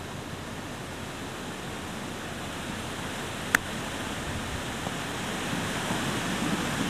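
One sharp click of a golf club striking the ball on a tee shot, about halfway through, over a steady rushing hiss that grows a little louder toward the end.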